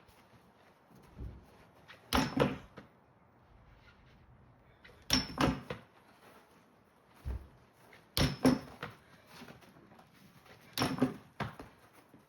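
Four short clusters of knocks or slaps, about three seconds apart.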